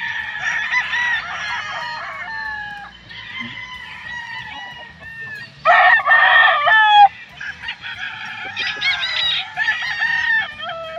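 Several gamecocks crowing in turn, their crows overlapping. The loudest is a close crow about six seconds in.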